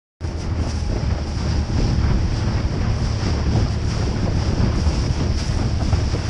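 Wind buffeting the microphone of a camera aboard an inflatable motorboat at speed, over rushing water and a low steady engine hum.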